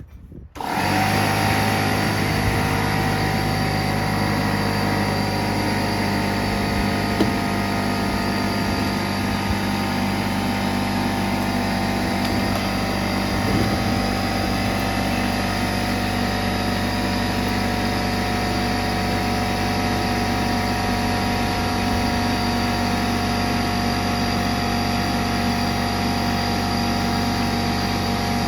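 A motor-driven machine starts abruptly about half a second in and runs steadily at constant speed, with a steady hum and whine.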